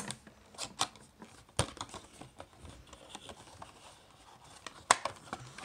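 Cardboard speaker box being handled and pried open by hand: scattered taps, scrapes and paper rustles, with sharp knocks near the start, about a second and a half in, and loudest near the end.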